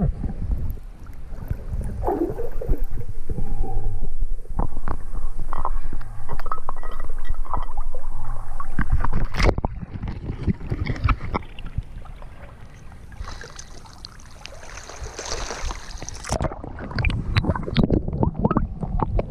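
Muffled underwater sound picked up through an action camera's waterproof housing: low rumbling and gurgling broken by many knocks and clicks of handling. Later there is a stretch of hissing water splashing as the camera moves along at the river surface.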